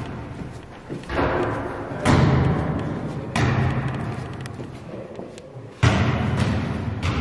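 A basketball bouncing and hitting in a gymnasium: four heavy thuds at uneven intervals, each followed by a long echo in the hall.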